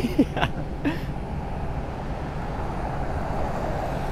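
Steady city traffic noise at a wet street intersection: a continuous low rumble and rush of vehicles on rain-wet pavement. A brief voice sound in the first second is the loudest moment.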